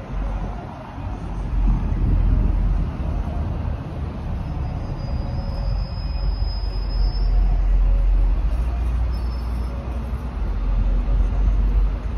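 Road traffic on a busy city street, a steady rumble of passing vehicles, with wind buffeting the microphone. A faint high squeal is heard for a couple of seconds about halfway through.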